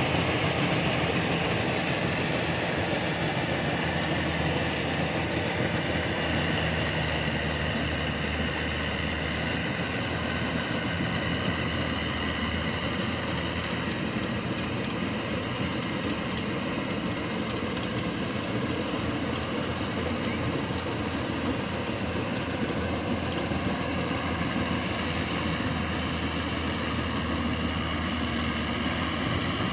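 Yanmar rice combine harvester running steadily under load, its engine and cutting and threshing machinery making a continuous, even mechanical din with a low engine hum.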